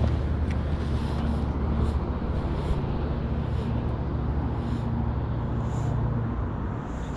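A road vehicle's engine giving a low, steady rumble that drops away about six seconds in.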